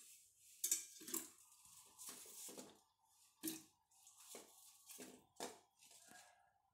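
Chopped apple pieces dropped into milk in a stainless-steel mixer jar: about nine small, irregularly spaced plops and splashes.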